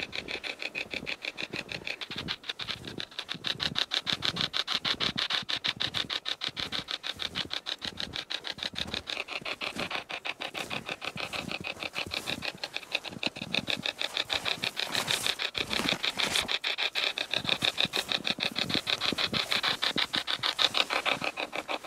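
Hack shack spirit box, a radio hacked to sweep non-stop through the stations, chopping out a rapid, even stream of static and brief radio fragments.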